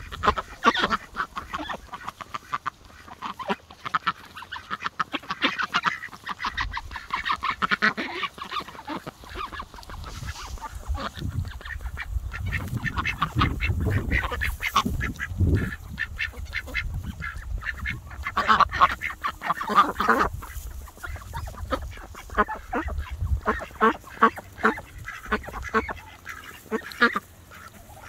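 A flock of ducks, Muscovies among them, pecking and nibbling at an apple: rapid runs of bill clicks and snaps, with duck calls mixed in. Bursts of low rumble come and go around the middle.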